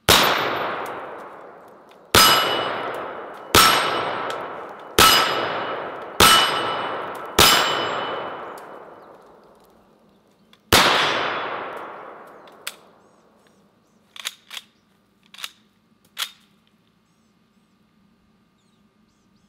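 M1 carbine firing .30 Carbine rounds semi-automatically: six shots at a steady pace, then a pause and a seventh shot. Each report trails off slowly under a metallic ring from hits on steel plate targets. A few light clicks follow.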